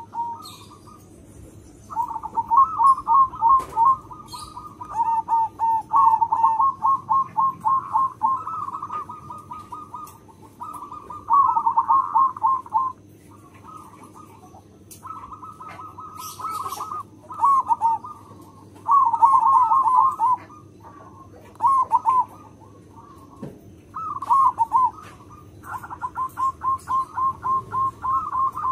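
Local zebra dove (perkutut) singing: repeated phrases of quick, staccato cooing notes, each phrase a second or two long, with short pauses between them.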